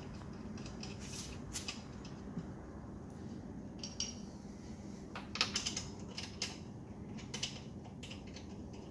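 Light metallic clinks and clicks, scattered and irregular, from hand tools and hardware being handled while a car's wheel is refitted. A steady low hum runs underneath.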